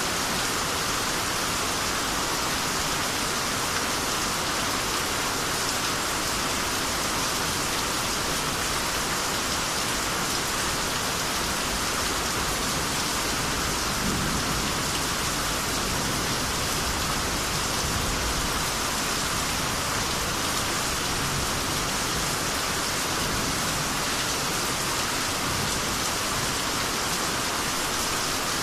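Steady, heavy rainy-season rain falling, an even hiss of many drops hitting surfaces with no letup.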